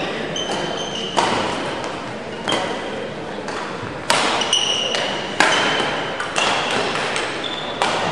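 Badminton rally: sharp racket strikes on the shuttlecock, several about a second apart, echoing in a large sports hall, with short high sneaker squeaks on the court floor between them.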